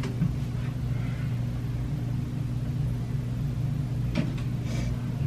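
Steady low hum and rumble of background room noise, with a faint click about four seconds in.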